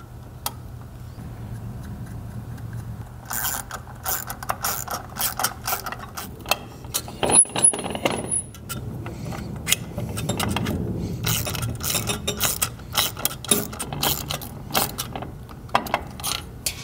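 Small hand socket ratchet clicking in quick runs while tightening the clutch-arm pivot bolts, starting about three seconds in, with sharp metal clicks between the runs. A low steady hum lies underneath.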